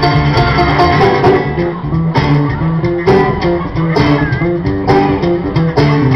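Live folk band playing an instrumental passage through a stage PA: banjo, acoustic guitar and bass guitar picking out notes over a steady cajon beat.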